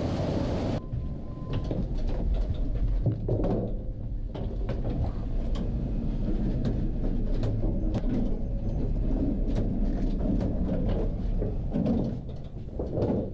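Hotel elevator ride and rolling luggage: a steady low rumble scattered with many small clicks and knocks, with the elevator doors sliding open midway. A short steady tone sounds about a second in.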